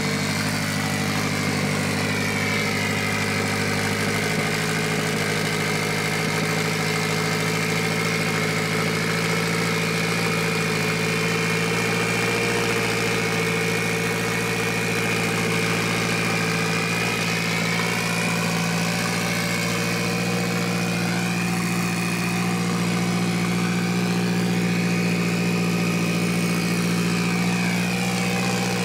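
Mitsubishi Lancer Evolution VIII's freshly rebuilt turbocharged 4G63 four-cylinder engine idling steadily on its first run after the rebuild, its pitch stepping up slightly about four seconds in.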